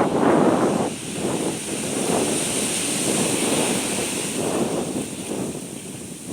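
Gusty wind buffeting the microphone: a rough, uneven rumble that swells and eases every second or so, loudest at the start.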